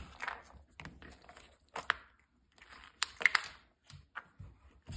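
A Doberman getting at kibble-filled plastic Easter eggs: a few sharp plastic clicks between short bouts of crunching and rustling.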